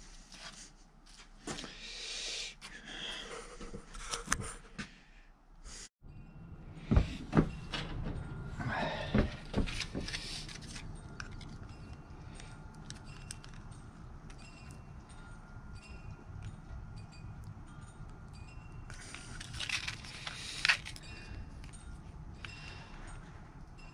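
Hands handling objects: rustling and light clicks, then a few sharp knocks and clacks as hard plastic 3D-printed lettering patterns are picked up and handled, over a steady low background rumble.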